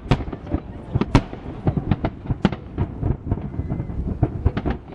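Aerial fireworks display going off: a rapid, irregular run of sharp bangs, several a second, some overlapping, with deeper booms between them.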